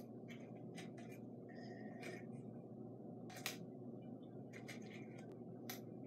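Small metal stud earrings being pulled off a cardboard earring card and set down on a table: scattered short clicks and scratches, about eight in all, over steady low background noise.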